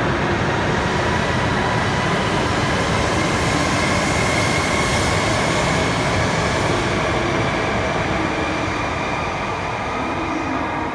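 A Shinkansen train in H5-series livery running past along an underground platform track: a loud, steady rush of wheels on rail with a faint steady whine over it. The sound eases off slightly near the end as the last car goes by.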